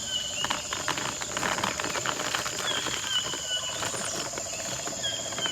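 Dry crackling and small clicks as a glued paper shaker is opened at the top and filled with uncooked rice and beans, most of it in the first three seconds. Underneath is a steady background of insect trilling and repeated short bird chirps.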